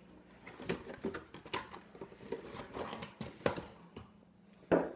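Scattered light clicks and knocks from a remote-control car being handled, with one louder sharp knock near the end.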